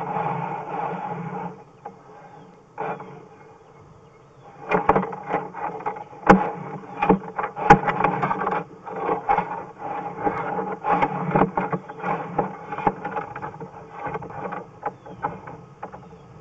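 Sewer inspection camera and its push cable being fed along a drain pipe: a rapid, irregular run of knocks and scrapes starts about four seconds in, over a steady hum.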